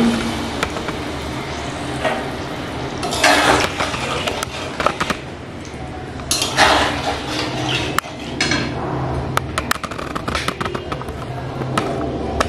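A metal spatula scraping and clinking against a metal kadai as ridge gourd and potato pieces in hot water are stirred. There is a few louder scrapes and a run of quick clicks near the end, over a steady hiss from the pan.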